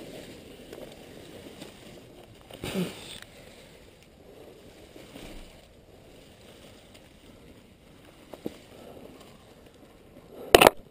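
Leaves and branches rustling and scraping against the camera as someone pushes through thick vegetation, with a thump about three seconds in and a loud, short, sharp clatter near the end.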